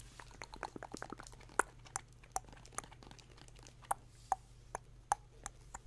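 A run of sharp taps and clicks close to the microphone: a quick flurry at first, then single taps about every half second.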